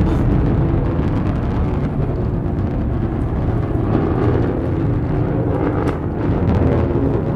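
Blue Origin New Shepard rocket's single BE-3 hydrogen engine in ascent: a steady low rumble with faint crackle.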